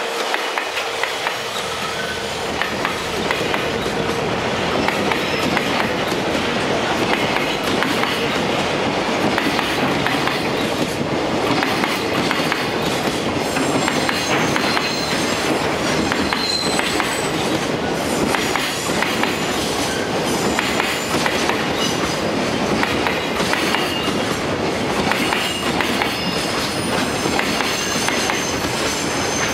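Freight train passing close by: a JR Freight EF210 electric locomotive followed by a long string of container flat wagons, the wheels clattering steadily over the rail joints, with faint high wheel squeals here and there.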